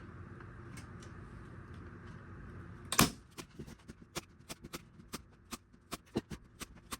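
A steady hum stops with a sharp knock about three seconds in, followed by a run of irregular light clicks and taps, like small hardware or tools being handled on a workbench.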